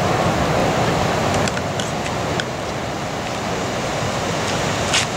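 Ocean surf breaking and washing, a steady rushing noise with gusty rumble low down, probably wind on the microphone. A few light clicks, and a sharper one near the end.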